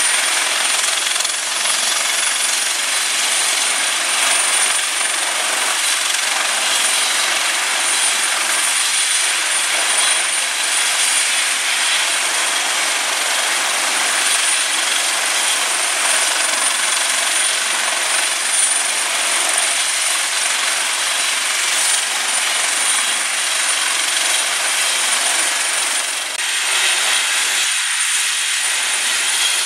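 Airbus Helicopters H225M twin-turbine helicopter running on deck with its rotors turning before takeoff: a loud, steady rush of turbine and rotor noise with a thin, high, steady turbine whine over it.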